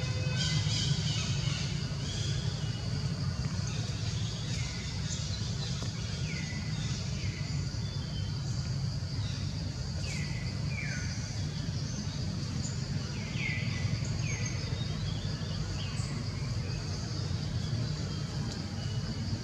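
Forest ambience: short falling whistled calls repeat every second or two, over a steady high-pitched drone and a low steady rumble.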